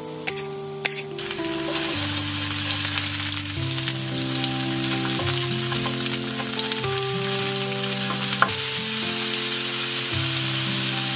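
A couple of knife chops on a wooden cutting board, then, about a second in, vegetables start sizzling loudly in a hot frying pan as they are stir-fried with a wooden spatula. Background music with steady notes plays underneath.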